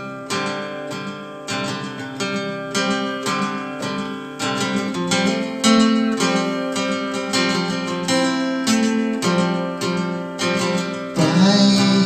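Acoustic guitar strummed in a steady rhythm, chords ringing out, playing a song's introduction.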